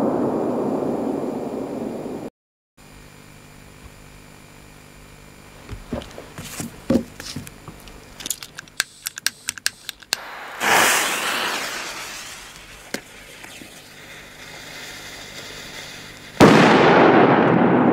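The fading rumble of a blast dies away, and after a cut come scattered small clicks and a short hiss. Near the end a Cobra firecracker goes off with a single sudden loud bang that echoes away slowly.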